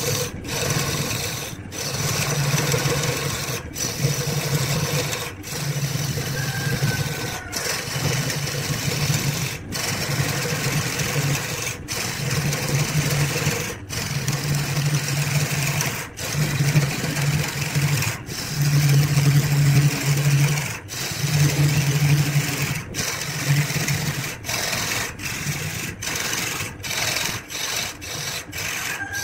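Wood lathe running with a steady motor hum while a tool rubs against the spinning wood. The sound breaks off for an instant about every two seconds, more often near the end.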